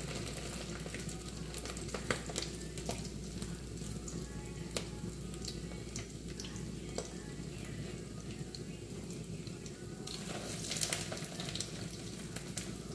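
Tuna patties frying in hot oil in a pan, a steady sizzle with scattered pops and crackles. The sizzle grows louder about ten seconds in.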